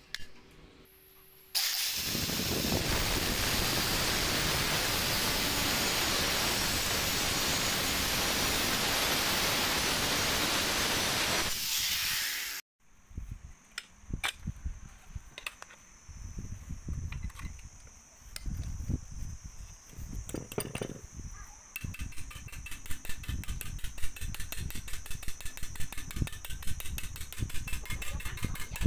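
A loud steady hiss for about ten seconds stops abruptly. Then come irregular knocks of metal being handled at a bench vise. From a little past the two-thirds mark, a hand file makes fast, even strokes, about five or six a second, on a metal bar clamped in the vise.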